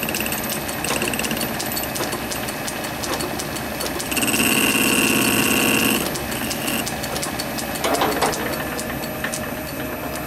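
Small metal lathe running, its spinning chuck giving a steady mechanical run with regular ticking, while the tool takes very light cuts on the outside of the part. About four seconds in there is a louder stretch of about two seconds with a steady high whine over a low hum.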